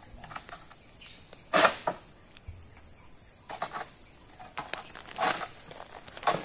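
Steady high-pitched insect drone, with a few short rustles and knocks breaking in: the loudest pair about a second and a half in, smaller ones later.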